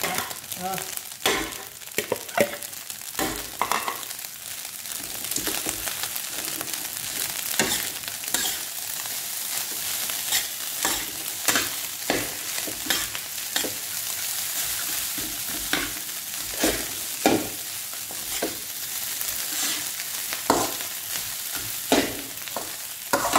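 Fried rice being stir-fried in a metal wok: a steady sizzle with a metal spatula scraping and clacking against the pan, irregularly, about once or twice a second.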